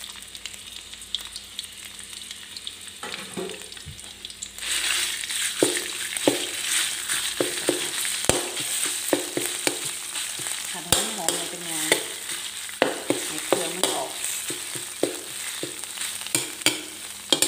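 Red curry paste frying in hot oil in a wok, stirred and scraped with a metal spatula. The sizzle gets louder about four and a half seconds in, with many quick scrapes of the spatula against the pan.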